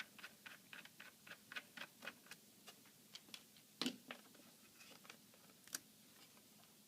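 Faint ticking of a small screwdriver backing out a tiny laptop screw, about five light clicks a second for roughly three seconds, then two sharper clicks a little later.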